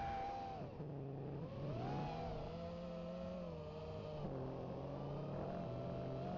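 FPV quadcopter's brushless motors whining, heard from on board, the pitch shifting with throttle: it drops about a second in, rises again around two seconds, then holds fairly steady.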